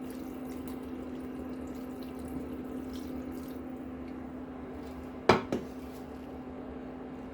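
Chicken broth being poured into a pan of potatoes and chicken, with a steady liquid noise over a constant low appliance hum. Two sharp clanks of a utensil or pot come about five seconds in.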